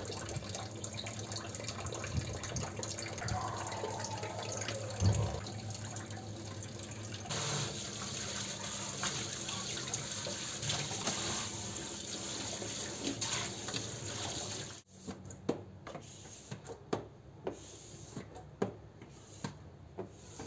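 Kitchen tap running into a stainless steel sink while dishes are washed by hand under it, with one knock about five seconds in. The water stops about fifteen seconds in, and a string of short clinks follows as dishes and utensils are handled.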